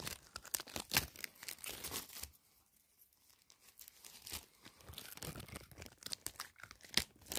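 Paper towel and bubble-wrap packaging being unwrapped by hand, crinkling and rustling on and off, with a short lull about two and a half seconds in.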